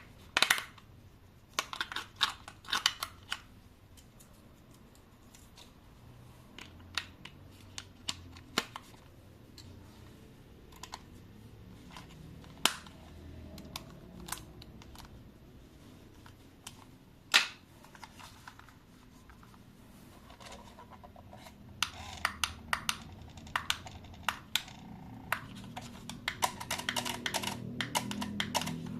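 Hands handling a toy's packaging and plastic parts: irregular sharp clicks and taps, some single and some in quick clusters, coming thicker near the end.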